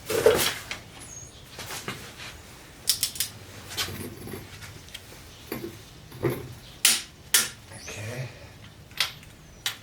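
Irregular sharp metal clinks, knocks and scrapes of a pry bar and socket wrench against a 351 Windsor block while a crankshaft main-cap stud is being tightened, with a loud clank right at the start.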